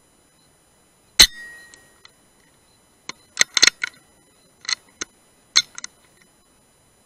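A single shot from a .177 PCP air rifle, a sharp crack with a short ring after it, about a second in; then a quick series of sharp clicks and clacks, of the kind made when the rifle's action is worked to reload.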